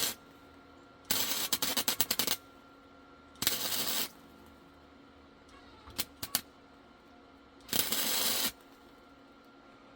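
MIG welder striking the arc on steel for short tack welds: four crackling bursts of about half a second to a second and a half each, with a couple of brief pops in between.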